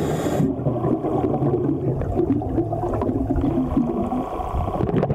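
Scuba diver breathing through a regulator underwater: a short hiss of an inhale at the start, then a long, low rush of exhaled bubbles.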